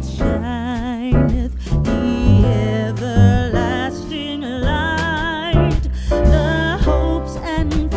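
Background music: a song with a singer holding notes with vibrato over guitar and bass.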